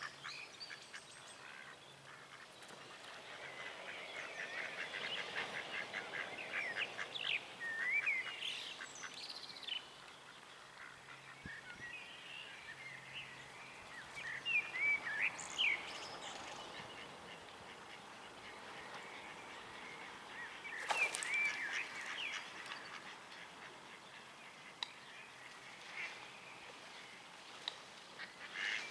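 Mallard ducks calling: scattered short calls, a fast run of rapid notes in the first third, and a louder burst of calls about two-thirds of the way through.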